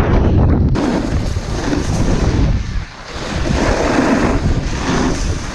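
Strong wind rushing and buffeting the camera microphone, a loud steady roar that dips briefly about three seconds in and then rises again.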